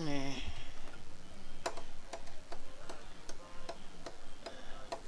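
Regular, evenly spaced ticking, about two and a half ticks a second, starting after the first second and a half.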